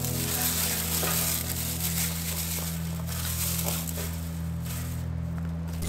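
Dry grass and tinder rustling and crunching as handfuls are packed into a metal fire pit to start a campfire.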